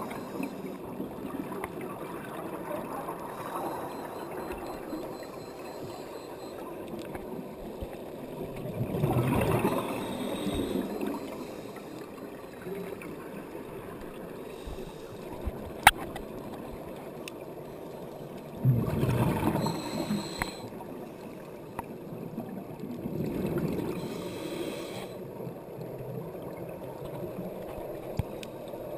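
Underwater ambience of a scuba dive: a steady hiss and gurgle, broken by louder rumbling gurgles of exhaled regulator bubbles about 9, 19 and 23 seconds in. A single sharp click comes near the middle.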